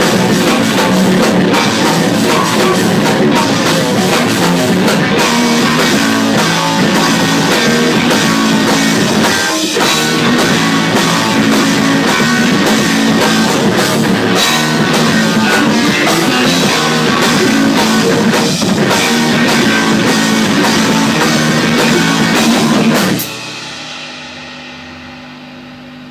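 Math-rock band playing loud on drum kit with cymbals, electric guitar and bass. About 23 seconds in the band stops together, leaving held notes ringing and fading out.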